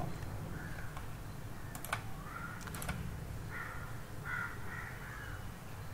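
A crow cawing several times in the background, in short harsh calls, with two sharp computer clicks about two and three seconds in.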